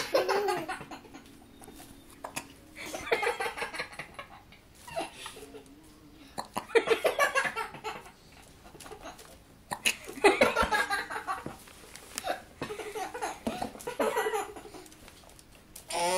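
Hiccups with bursts of laughter, about six bursts a few seconds apart, broken by short sharp catches.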